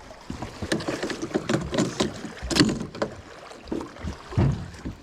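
Irregular knocks and clatter of someone moving about a fishing boat and setting a fishing rod into a rod holder, with the loudest knocks about two and a half and four and a half seconds in.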